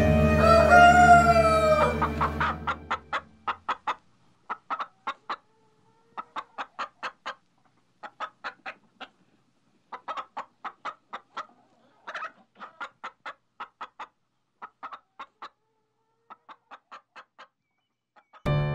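A rooster crowing as music fades out, then chickens clucking in short runs of several sharp clucks with pauses between.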